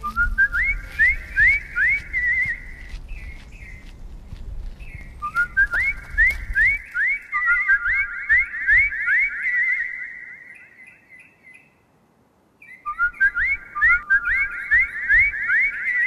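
Bird-like whistles: quick rising whistles, several a second, in three bursts, some ending in a short warble, with two overlapping series in the middle burst.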